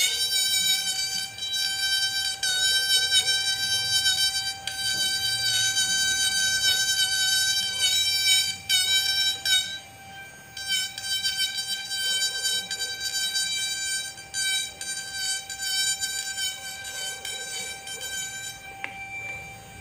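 An electric pen-style rotary carving tool runs at a steady high-pitched whine while its bit grinds fine detail into ngọc am wood. Short scratchy rasps come as the bit bites. The whine eases briefly about halfway through as the tool is lifted or unloaded.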